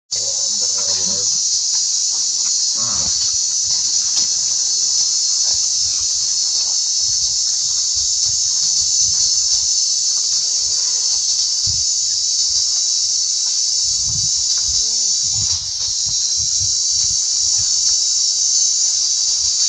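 Steady high-pitched buzzing of an insect chorus, unbroken apart from a brief dip about three-quarters of the way through.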